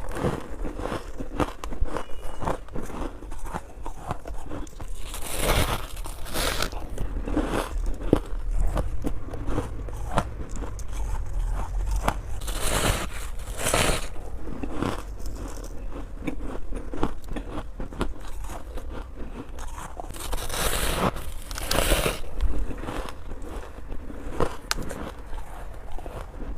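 Close-miked biting and chewing of freezer frost ice: repeated crunches and crackles, with a few louder bites spread through.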